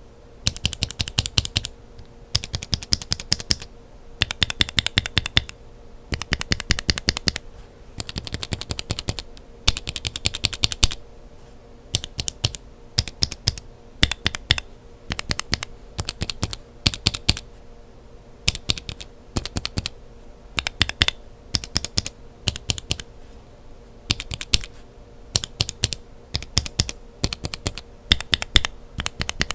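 Lubed linear mechanical keyboard switches with Kailh Burgundy stems, in different housings, pressed over and over so that they clack. First come six quick bursts of rapid presses, about a second each; then the presses come in shorter, more spaced-out clusters.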